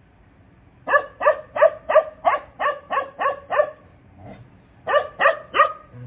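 Young Bakarwal dog barking: a quick run of about nine barks, roughly three a second, then after a short pause three more.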